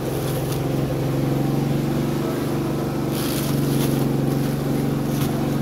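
A machine motor running with a steady drone, with brief rasping bursts about three seconds in and again near the end.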